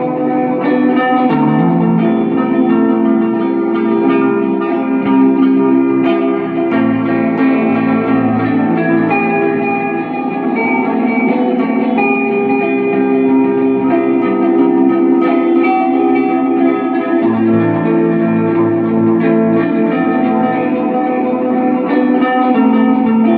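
Electric guitar played through an amplifier: chords and single notes that ring on and overlap.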